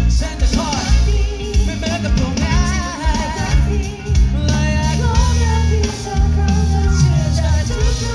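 Live band and singer performing a song: a sung vocal line over heavy bass and band accompaniment.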